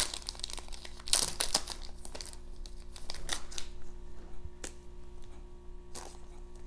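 Soft plastic card sleeve and trading cards being handled: a cluster of crinkles and clicks about a second in, then single light clicks every second or so as the sleeve is opened.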